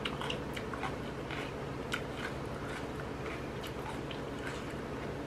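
A person chewing a mouthful of instant noodles: scattered soft mouth smacks and small clicks, over a steady low hum.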